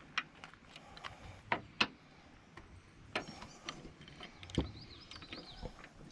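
Scattered light clicks and taps of metal parts as an aluminum hood latch on a Jeep JK is turned and adjusted by hand.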